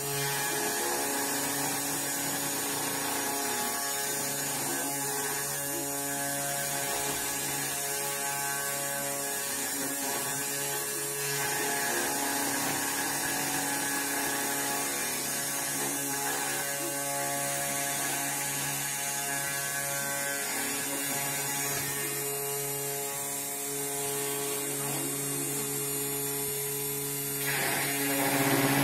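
3018 desktop CNC router carving with a V-shaped bit. The spindle motor gives a steady hum, and the stepper motors whir as the gantry moves, their tones shifting with each move. The sound grows louder near the end.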